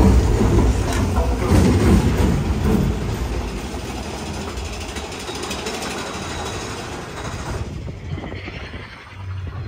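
Mine-train roller coaster running along its track through a tunnel, a heavy low noise that is loudest in the first few seconds and then eases off. About eight seconds in the sound thins and drops as the train comes out of the tunnel.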